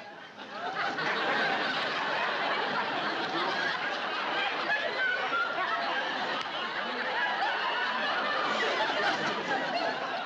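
Sitcom audience laughter. It swells up within about a second and carries on steadily, a crowd of many people laughing together.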